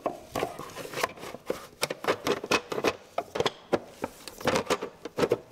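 Plastic outer timing cover of a Volvo 850 engine being pushed and snapped into place by hand, a quick irregular string of plastic clicks and knocks.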